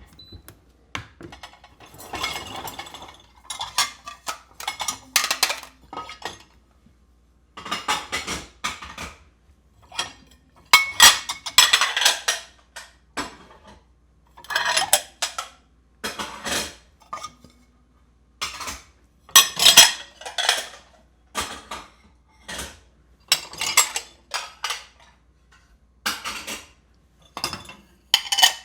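Dishes and cutlery being unloaded from a dishwasher: irregular clatters and clinks of plates, glasses and silverware being lifted out and set down, in short bursts with brief pauses between them.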